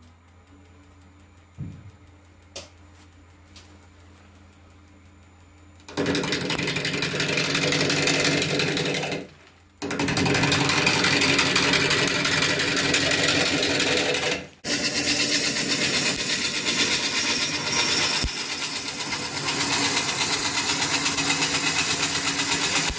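A wood lathe spins a faceted blank of green, wet wood with a low motor hum and a couple of small clicks. About six seconds in, a turning tool bites into it and a loud, rough cutting noise sets in with a fast flutter as the tool meets the out-of-round blank. The cut stops briefly twice, then runs on steadily as the blank is roughed down to round.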